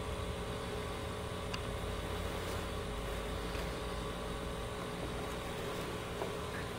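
A steady mechanical hum with background hiss, unchanging throughout, with a faint tick about one and a half seconds in.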